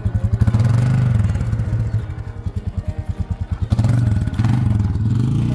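A small engine running, with a low, pulsing idle that picks up and smooths out about half a second in, falls back to pulsing, and picks up again later.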